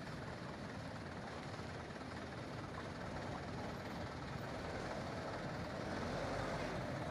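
Truck engines running as two large cargo trucks roll slowly toward the listener, growing gradually louder in the second half.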